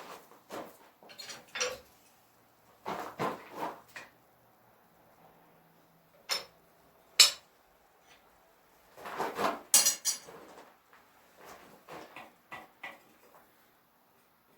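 Scattered clinks and clattering of metal objects being handled and set down, with two sharp ringing clinks about halfway through and a busier clatter a little later.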